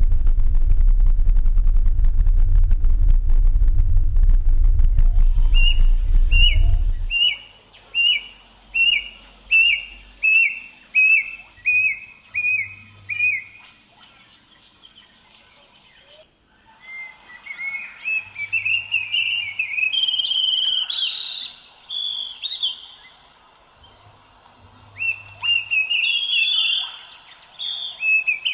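A loud low rumble from the car for the first several seconds. Then a brush cuckoo calls: a run of about a dozen short whistled notes that hook downward, about one and a half a second, each a little lower than the last, over a steady high hiss. After a cut about two-thirds in, other birds chirp and call.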